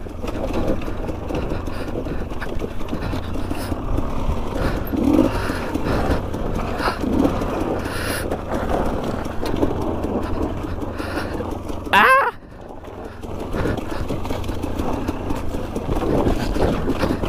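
Two-stroke KTM 250 EXC enduro motorcycle ridden along a rough dirt trail: a steady engine and rough-ground rumble heard from the rider's helmet. About twelve seconds in, one brief loud sound rises and falls sharply in pitch.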